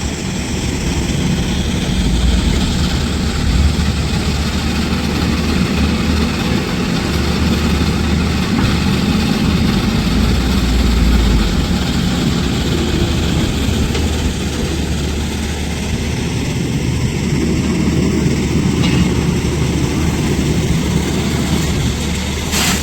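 Tata Hitachi 210 LC excavator's diesel engine running steadily at work, deep and loud, swelling under load a couple of seconds in and again about ten seconds in. A single sharp knock comes near the end.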